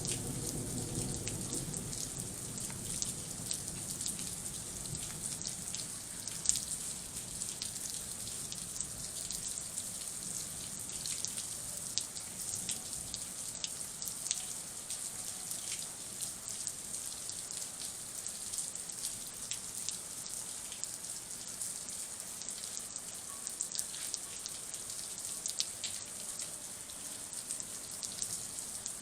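Heavy thunderstorm rain falling steadily, a high hiss dotted with many separate drop ticks. A low rumble fades away in the first couple of seconds.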